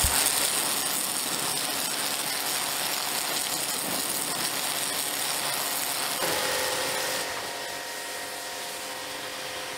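A 2000-watt, 130-bar electric pressure washer's jet spraying hard onto a shed floor: a steady loud hiss of water. About six seconds in, a steady whine from the washer's motor comes up and the hiss drops.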